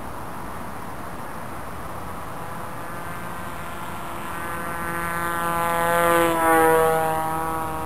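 Radio-controlled model aircraft flying a low pass: its motor and propeller tone grows louder, drops in pitch as it goes by about six seconds in, then fades away.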